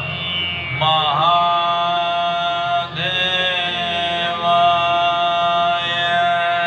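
Devotional chanting of a Shiva mantra: a voice holds two long sustained notes, the second starting about three seconds in, over a steady low drone.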